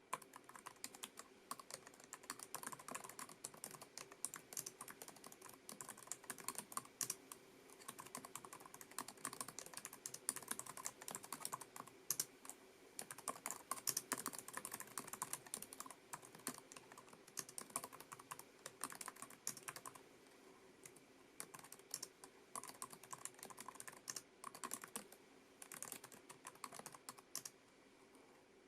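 Typing on a Lenovo ThinkPad TrackPoint Keyboard II: a fast, irregular clatter of its low-profile scissor-switch keys, with a couple of short lulls.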